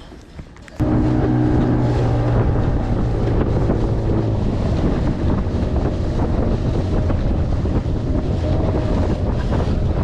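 A small boat's engine running steadily underway, with heavy wind buffeting on the microphone and water rushing past the hull. It starts abruptly about a second in.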